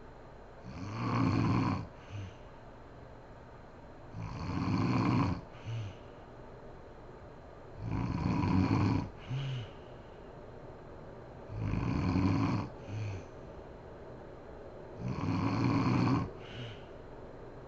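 Woman snoring in her sleep: five long snores, about one every three and a half seconds, each followed about half a second later by a short, weaker sound.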